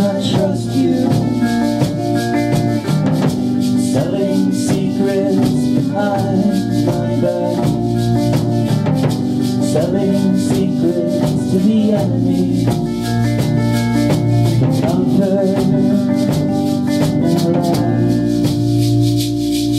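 Live indie-folk band playing a song: drum kit with constant cymbal and hi-hat strokes, electric bass, electric guitar, and a man singing lead.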